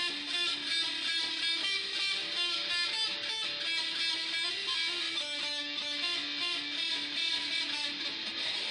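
Guitar playing a fast two-handed tapping lick on the third string, a quick repeating run of single notes played through as a practice run of the tapping exercise.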